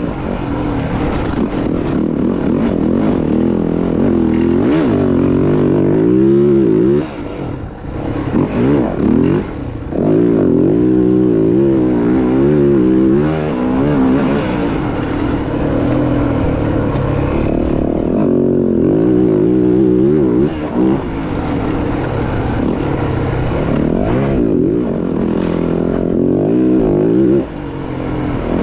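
Dirt bike engine revving up and down under way, its pitch rising and falling with the throttle. The throttle is rolled off briefly a few times.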